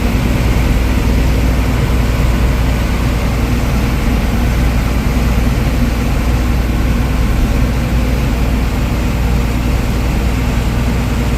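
Heavy farm machinery running steadily, a loud even drone that holds one pitch without change.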